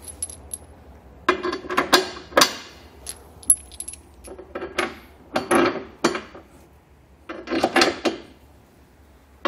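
Steel hardware and fifth-wheel base-rail parts clinking and clanking against each other: a string of irregular, sharp metallic clinks with short ringing, loudest around two seconds in and again near the end.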